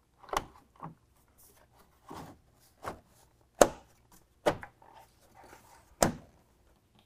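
Plastic trim clips snapping into the front bumper of a Ford F-150 as the trim piece is pressed into place from the centre outward: about half a dozen sharp snaps, the loudest about three and a half and six seconds in, with softer rubbing of plastic between.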